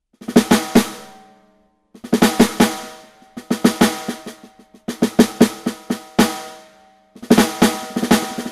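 Live-sampled acoustic drum kit played back through a software sampler: short fills of quick drum strikes, each run ringing out and stopping before the next, about four phrases with brief pauses between them.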